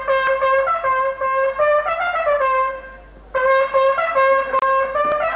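A brass horn blown in a room: a run of short tongued notes, mostly repeating one pitch with a few higher ones, breaking off for about half a second near the middle before starting again.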